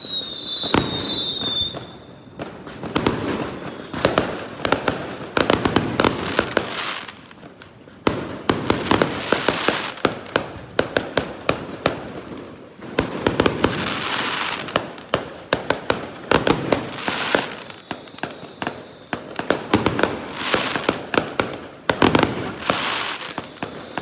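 Fireworks going off without a break: dense crackling and sharp pops in waves, a new surge every second or two. A short falling whistle sounds right at the start.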